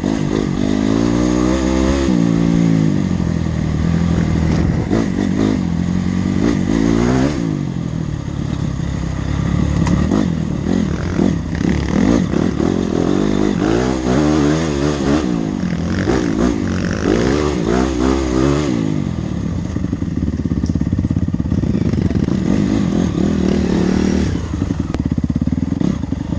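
Honda CRF dirt bike engine being ridden, revving up and down again and again as it climbs and drops in pitch, then running steadier for the last several seconds.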